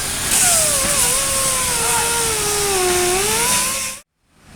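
Industrial sandblasting machine for steel sway bars running: a loud, steady hiss with a wavering mechanical whine that slowly dips and rises. It cuts off suddenly about four seconds in.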